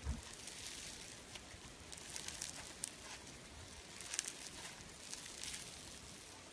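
Green floam slime, full of tiny foam beads, being squeezed and stretched by hand, giving a crisp crackling of many small pops, thickest around two seconds in and again around four and five seconds. A soft low thump comes right at the start.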